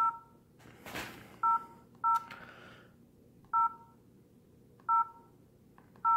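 Keypad tones of an LG 442BG flip phone: about six short two-note touch-tone beeps at irregular intervals as its keys are pressed to move through the menus.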